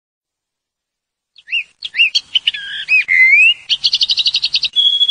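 High-pitched whistled chirps and swooping pitch glides, starting about a second and a half in, then a fast warbling trill and a held whistle note near the end.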